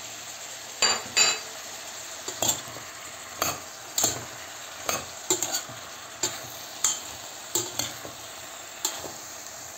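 Eggplant, onion and green peppers frying in oil in a stainless steel pot, a steady sizzle, while a metal slotted spoon stirs them, knocking against the pot in irregular strokes about once or twice a second.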